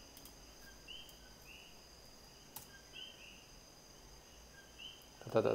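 Faint room tone with a steady hiss, faint short high chirps recurring every half second to a second, and a single sharp click about two and a half seconds in, from a computer keyboard keystroke.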